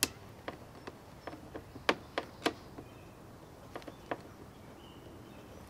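Light, irregular clicks and taps of a hand screwdriver working a screw into the plastic Power-Pole mounting bracket on a kayak hull.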